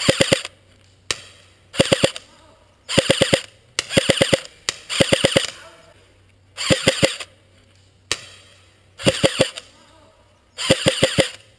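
Airsoft replica firing short full-auto bursts, about eight of them a second or so apart, each a quick rattle of four to six shots.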